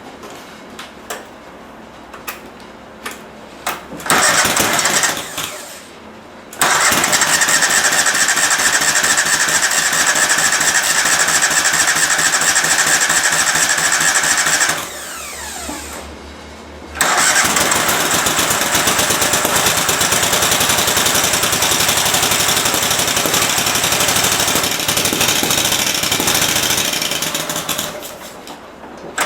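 A 22 hp Kohler engine on a Cub Cadet lawn tractor being started on test after its fuel solenoid was cleaned: a few clicks, a brief crank, then the engine catches and runs steadily. About halfway it winds down and stops; a second or so later it is started again and runs, fading away near the end.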